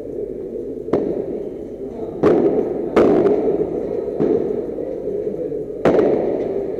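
Padel ball hit back and forth with padel rackets in a rally: five sharp pops, the first about a second in and the last near the end, over a steady background noise.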